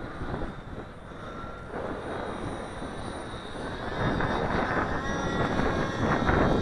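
Radio-control model plane's motor whining in flight under heavy wind buffeting on the microphone, growing louder about four seconds in.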